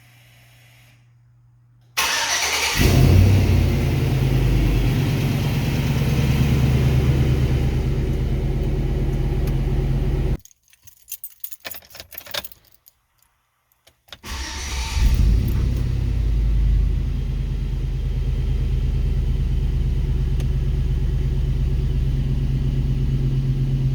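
A 2005 GM GMT800 pickup's engine starting about two seconds in and idling steadily, the starter engaging normally again. It shuts off around ten seconds in, a few light clicks follow, and about four seconds later it starts again, briefly louder before settling back to a steady idle.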